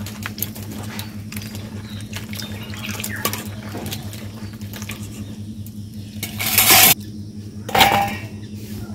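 Water splashing in a pan or bowl, with pots and dishes clinking and clattering, as peeled garlic is rinsed. Two louder gushes of water come in the second half, over a steady low hum.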